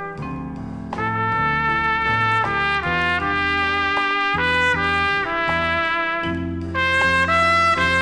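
Big band jazz recording with a lead trumpet playing held melody notes over the brass section and a moving bass line. The band swells louder near the end.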